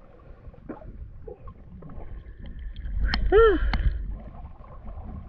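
Shallow seawater lapping and sloshing around a camera held at the surface, with a steady low rumble. About three seconds in, a short high-pitched call rises and falls.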